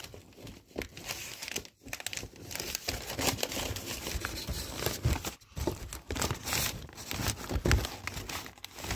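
Wrapping paper and cardboard crinkling and rustling as they are handled, in uneven bursts with two short pauses, about two seconds in and past five seconds.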